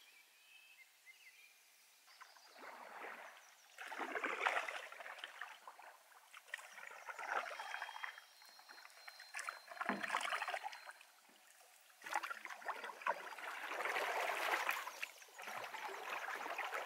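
Paddle strokes from a Swift packboat in calm water: about seven swishing, splashing strokes, one every couple of seconds, starting about two seconds in.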